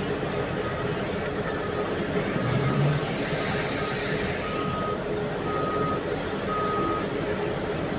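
Heavy mining diesel machinery running steadily, with a backup alarm beeping about once a second. The beeps grow louder about halfway through. A brief hiss sounds around the middle.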